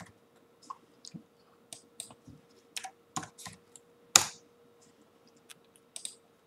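Computer keyboard keystrokes and mouse clicks while values are typed into a software field: about a dozen separate, irregularly spaced clicks, with one louder click a little after four seconds in.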